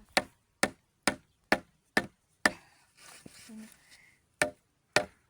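Hammer blows on wood: six sharp strikes about two a second, a pause of about two seconds, then two more near the end.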